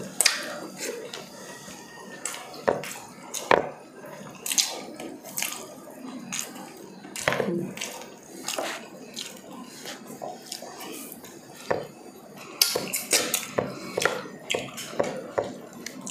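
Close-miked eating sounds: wet lip smacks, sucking and chewing as saucy pork ribs are eaten by hand. Irregular sharp clicks run throughout, a few of them louder, with the odd light knock on the tray.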